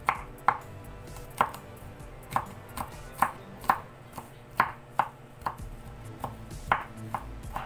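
Chef's knife chopping garlic on a wooden cutting board: the blade knocks the board in uneven strokes about twice a second.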